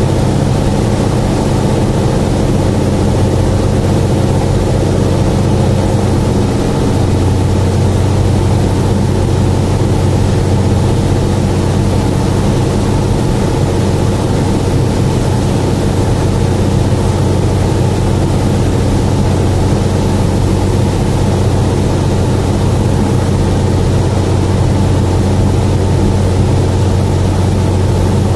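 Steady engine and airflow drone of an aircraft in descent, heard inside the cabin. A low hum grows stronger about seven seconds in.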